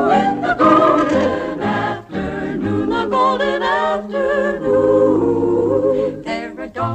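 Background music: a choir singing sustained, wavering notes.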